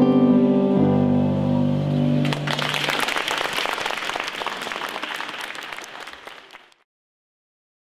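The final chord of a song on a Yamaha digital piano and an acoustic guitar rings out, then an audience applauds. The applause fades away and cuts off into silence near the end.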